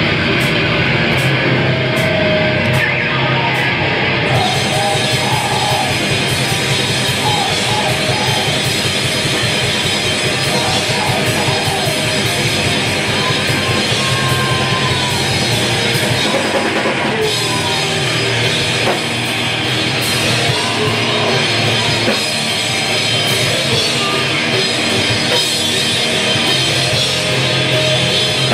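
Loud live screamo/crust hardcore band playing: distorted electric guitars over a drum kit, with crashing cymbals joining about four seconds in.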